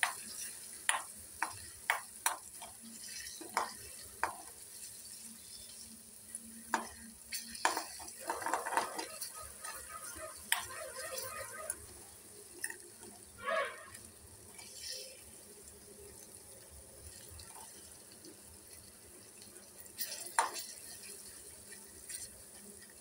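Metal spoon scraping and clacking against a kadhai while stirring and breaking up paneer frying in oil, over a light sizzle. The clacks are frequent for the first ten seconds or so, then come only now and then.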